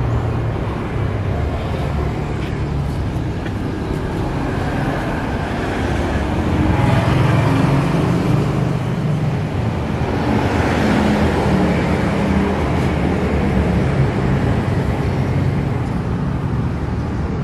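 Steady low rumble of motor vehicle engines, growing a little louder around the middle.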